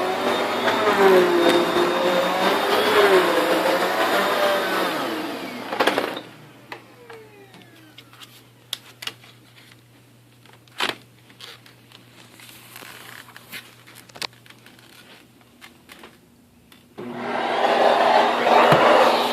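Kenmore Progressive vacuum cleaner running, its pitch wavering up and down. It is switched off about six seconds in and its motor winds down with a falling whine, leaving scattered clicks and knocks. It is switched back on near the end.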